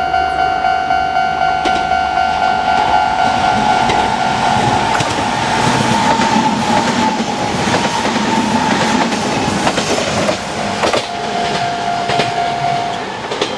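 A Japanese level crossing's electronic warning bell rings in rapid, even dings while a Kintetsu Minami Osaka Line train passes, its wheels clacking over the rail joints. The train noise fades about two-thirds of the way through, and the bell stops shortly before the end.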